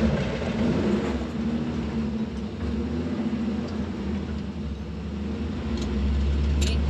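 A vehicle's engine and road noise as a steady low hum, the sound of a vehicle cruising along. A brief high squeak comes near the end.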